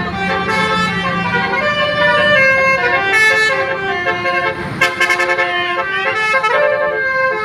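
Tour bus's 'basuri' telolet multi-tone horn playing a melody of stepped notes.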